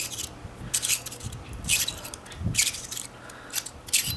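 Threaded ring being unscrewed by hand from a light-bulb socket adapter: a series of short scraping rasps, about one a second, as the threads turn.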